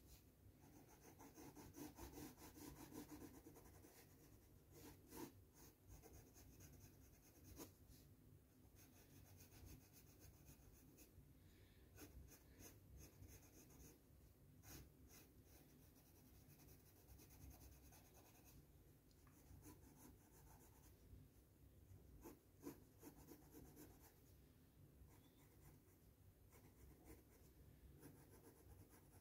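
Faint scratching of a Crayola coloured pencil on sketchbook paper, in many short strokes as it shades.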